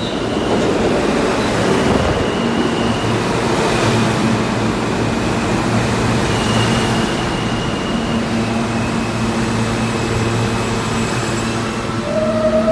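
Alstom-built R160B subway train pulling into the station and slowing past the platform: a steady rumble of wheels on rail, with a faint high electric whine that shifts in pitch. A short clear tone sounds near the end as the train comes to a stop.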